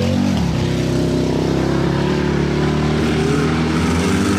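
Offroad racing pickup truck's engine running hard under load as it drives through mud, its pitch holding fairly steady with slight rises and falls.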